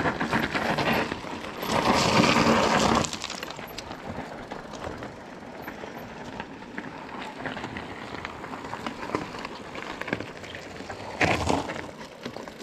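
Rushing and crackling noise of a mountain bike being ridden on a rough dirt trail, with scattered clicks and rattles. There are two loud rushes in the first three seconds and a shorter one near the end.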